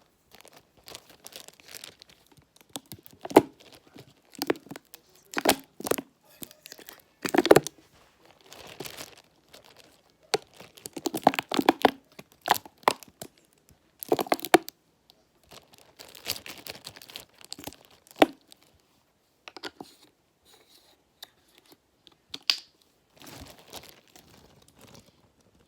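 Plastic bag crinkling and rustling in irregular bursts as aloe vera gel is squeezed into it.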